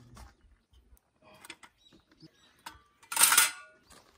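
Light metal clicks as a small folding stainless-steel fire pit is handled, then a loud clatter lasting about half a second, about three seconds in, as it is set down on gravel.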